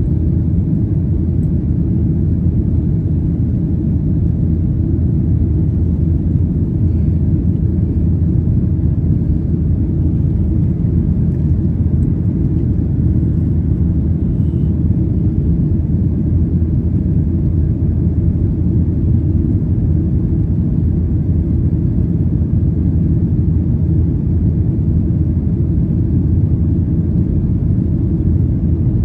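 Steady low rumble inside the passenger cabin of a Boeing 737-800 in flight: engine and airflow noise, unchanging throughout.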